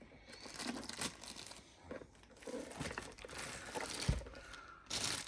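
Packing paper and packaging being unwrapped: irregular crinkling, rustling and tearing with short sharp crackles, the sound of a small appliance being unboxed.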